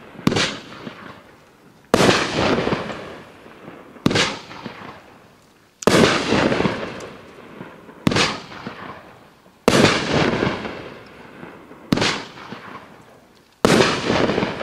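Burn Pit (JL1743) firework cake firing aerial shots: eight sharp bangs about two seconds apart, each trailing off over a second or more.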